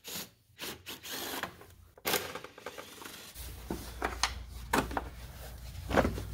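Impact gun backing out T40 Torx screws in short runs, among clicks and knocks of the tool and screws being handled.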